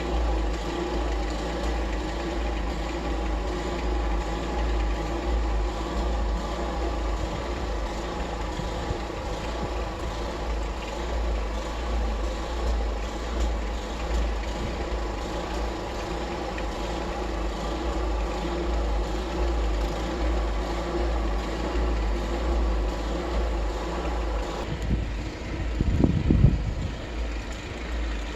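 An engine running steadily over a low rumble. About 25 s in its higher tones fade and a short louder low burst follows.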